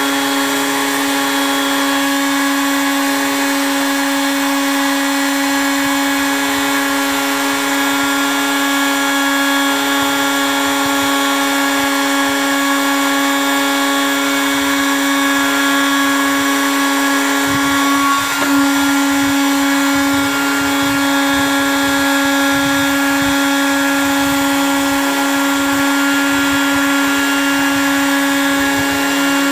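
Handheld 1600 W heat gun running steadily, its fan motor giving an even whine over a rush of blown air, with one brief wobble in pitch about two-thirds of the way through.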